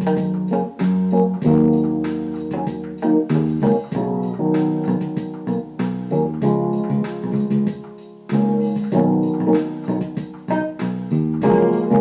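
Instrumental background music: held keyboard-like chords that change every second or two.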